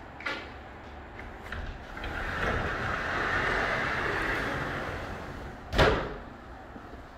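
Large glass sliding door panel rolling along its track with a rising and falling rush, then hitting its stop with one sharp bang about six seconds in. A couple of light clicks come before the roll.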